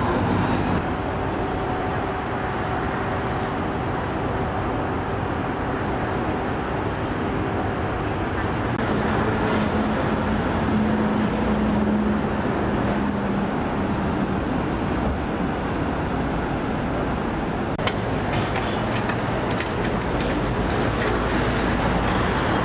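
Steady city street traffic: cars, taxis and buses running along a wide avenue. An engine's steady hum stands out for a few seconds about ten seconds in.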